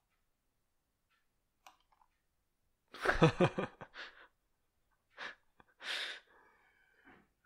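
Short non-speech vocal sounds from a person at a microphone: a brief voiced burst about three seconds in, then a couple of breathy exhales.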